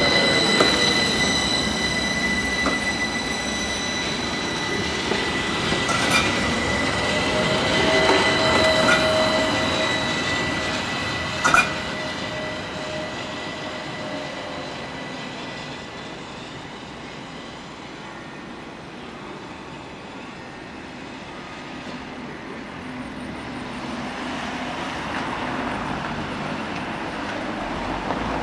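AnsaldoBreda Sirio light-rail tram passing close by with a steady high-pitched squeal and rail clatter, and a single sharp clack about eleven seconds in. The tram then fades off, and road traffic rises near the end.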